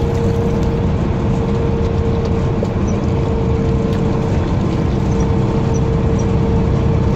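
Semi truck's diesel engine idling: a steady low rumble with a constant hum above it.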